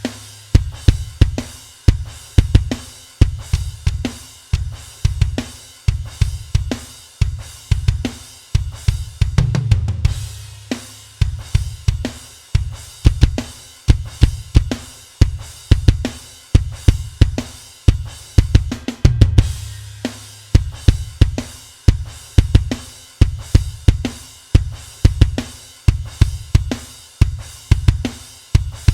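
Drum kit loop playing a steady beat, with a heavy kick drum, snare, hi-hat and cymbals. The kick's attack and release are being shaped by a transient enveloper plugin that is switched in and out.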